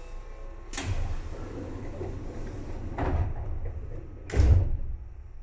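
Seibu 2000 series train standing at a station: three thuds, each with a rush of air, about a second in, at three seconds and, loudest, at about four and a half seconds, typical of its air-operated sliding doors working.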